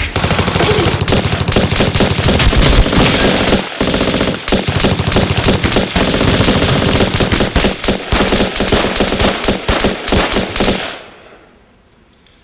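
Film shootout gunfire: rapid automatic fire mixed with single shots, the strokes coming thick and fast, loud and continuous. It stops abruptly about eleven seconds in.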